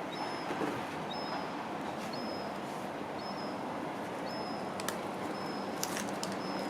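Gull fledgling whining: short, thin, high-pitched begging calls repeated about once a second over steady background noise, with a couple of faint clicks near the end.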